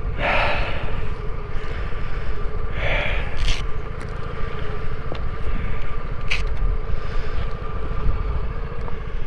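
Vespa scooter engine running at a steady cruising pace with a steady hum, under heavy wind rumble on the rider's microphone. Two brief surges of hiss come near the start and about three seconds in.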